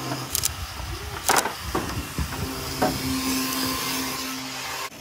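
A small motor's steady low hum, stopping just after the start and running again from about the middle, with several sharp knocks and clatters of wooden baseboard trim being handled on plastic sawhorses.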